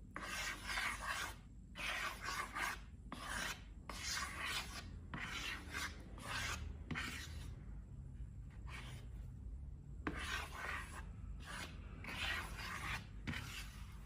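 A run of about a dozen scratchy rubbing strokes, each under a second long and separated by short pauses: hands working slime-making materials.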